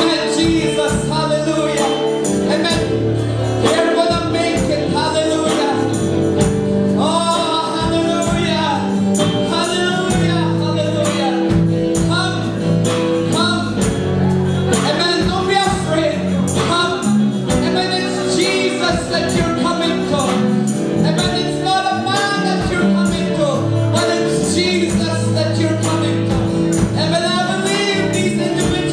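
Live church worship band playing a song with drums, bass and acoustic guitar under singing voices, with a steady beat and a sustained bass line.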